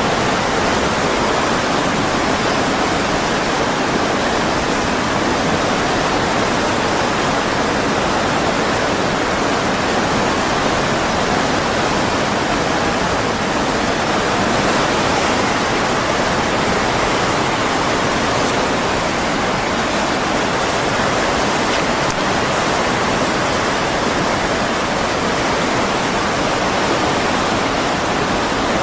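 Tsunami floodwater rushing steadily, a constant even rush with no breaks or changes.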